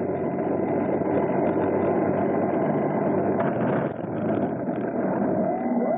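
Quadcopter drone's motors and propellers buzzing steadily, picked up by its own onboard camera. About three and a half seconds in the sound turns rough and briefly drops as the drone, struck by a hawk, tips over, then a rising whine follows as the motors speed up.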